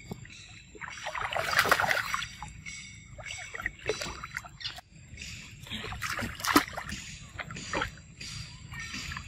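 Water splashing and sloshing as macaques swim and paddle in a pool, in uneven bursts, loudest about one and a half seconds in and again around six and a half seconds.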